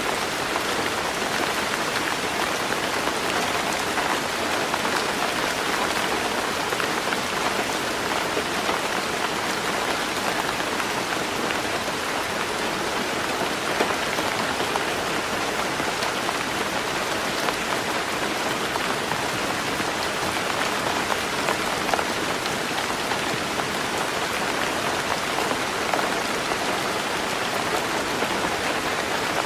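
Heavy rain falling steadily on a roof, a dense even patter with scattered individual drop ticks.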